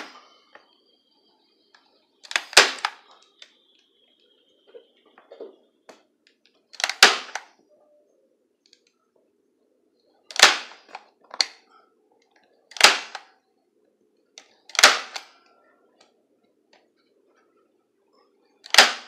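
Manual spring-loaded staple gun firing into wood: six sharp snaps a few seconds apart, with a couple of fainter clicks between them, as it fastens cut-out wooden letters to a backing board.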